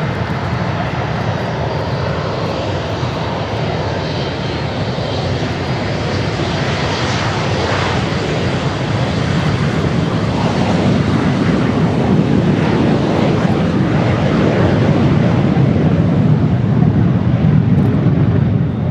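Four Kawasaki T-4 jet trainers flying over in formation, their twin turbofan engines making a continuous jet rush that slowly grows louder as they come closer.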